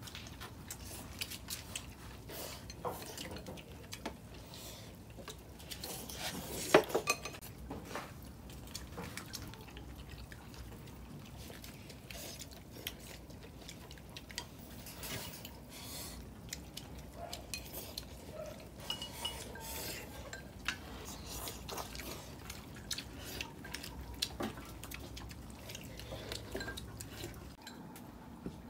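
Tableware clinking during a meal: chopsticks and spoons tapping and scraping against porcelain and steel bowls in scattered light clinks, with one sharper clink about seven seconds in.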